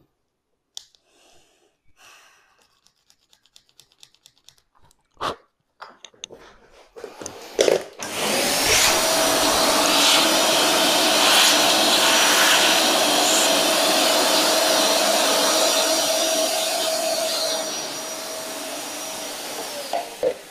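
Light scraping and clicking of a flat metal tool on the small plastic watch frame, taking off old adhesive. About eight seconds in a handheld electric blower switches on: a rush of air with a steady whine that rises as the motor spins up. It runs about twelve seconds, gets quieter for the last few, and winds down near the end.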